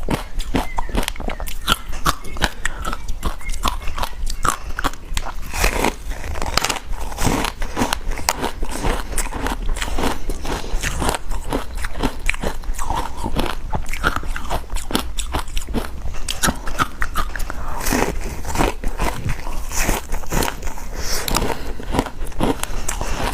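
Close-miked biting and chewing of frozen passion fruit ice: a dense, continuous run of sharp crunches and crackles as the ice is crushed between the teeth.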